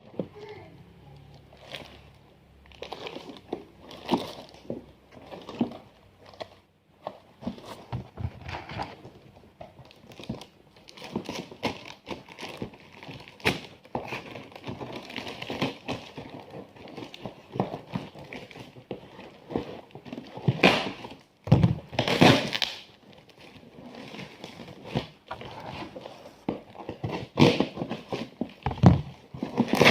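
Plastic wrapping and packaging crinkling and rustling by hand, with scattered knocks, as a spin mop set is unpacked. The handling grows louder about two-thirds of the way through and again near the end.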